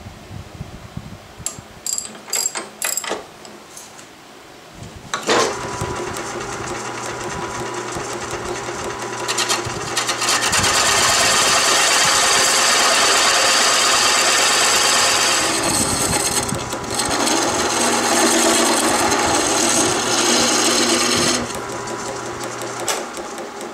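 Wood lathe starting about five seconds in and running with a steady hum while the spinning wooden hammer handle is being shaped, with two long stretches of loud hissing scraping from the work; the motor stops shortly before the end. A few sharp clicks come before the lathe starts.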